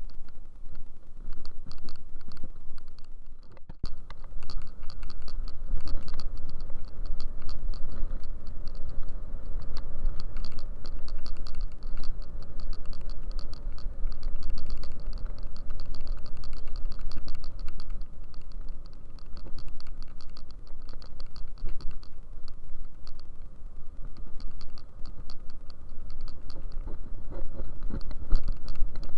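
Wind buffeting and road rumble on a camera riding on a moving scooter, with a fast, continuous patter of small clicks and rattles.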